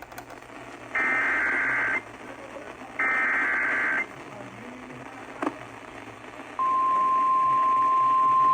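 NOAA Weather Radio emergency alert signal. It starts with the end of one burst, then two one-second bursts of warbling digital header tones about a second apart, then a short click. About six and a half seconds in, the steady single-pitch 1050 Hz warning alarm tone begins, announcing a severe thunderstorm warning.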